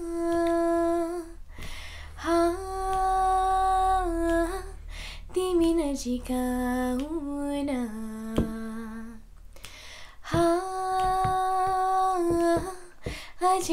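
A girl singing a slow Nepali song with no accompaniment. She draws out long held notes without clear words, gliding between pitches and pausing briefly for breath a few times.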